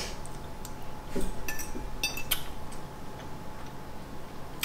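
A few light clicks and clinks of cutlery against a dish while eating, scattered irregularly, over a faint steady hum.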